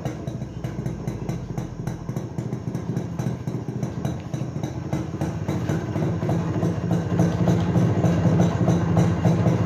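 Motorcycle engine running steadily with a fast, even exhaust pulse, getting louder over the last few seconds.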